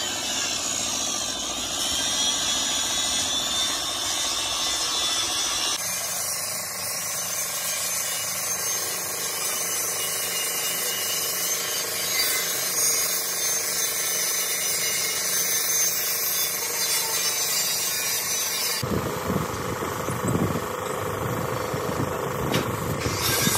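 Compressed-air paint spray gun hissing steadily as it sprays paint onto a truck cab. The sound changes abruptly twice, and from about 19 seconds in a lower rumble of machinery runs under the hiss.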